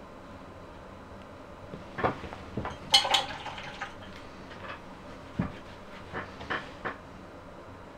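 Paintbrushes and painting tools clinking and knocking as they are handled. A quick cluster of clicks comes about two to three seconds in, including one short ringing clink, then a few scattered light knocks.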